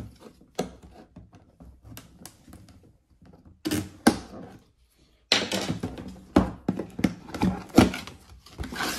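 A cardboard retail box being opened by hand: scattered light taps and scrapes at first, two louder knocks about four seconds in, then dense cardboard rustling and scraping from about five seconds in as the flaps are opened and the inner tray slides out.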